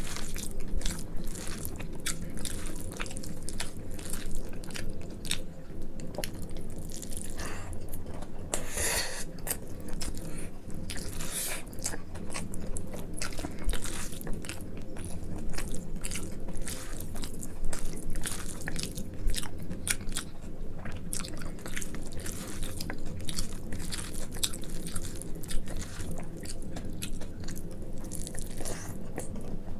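Close-miked wet chewing and lip-smacking of a person eating rice mixed with mashed eggplant (brinjal bhorta) by hand, with a rapid stream of small clicks and squelches.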